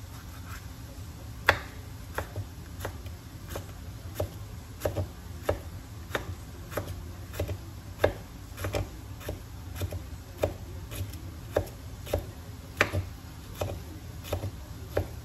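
Kitchen knife chopping green chile on a wooden cutting board: sharp, irregular taps about two a second.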